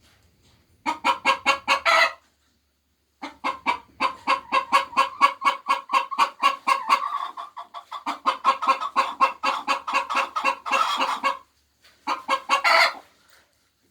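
Hen cackling, the egg song of laying hens: rapid, evenly repeated clucks, about six a second, in three runs with short pauses between them, the middle run long.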